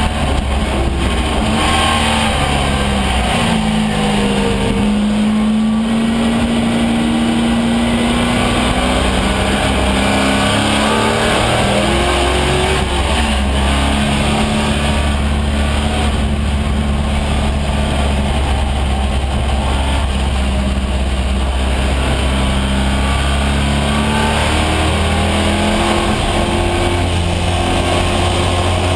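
AMC Javelin AMX race car's engine, heard from inside the stripped cabin at racing speed, its pitch climbing under acceleration and dropping on lifts and shifts several times, over a steady rush of wind and road noise.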